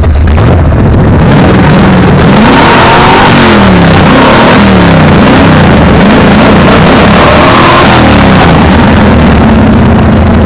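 Pontiac Firebird's engine running loudly, its pitch rising and falling again and again as it revs up and eases off, over a steady low drone.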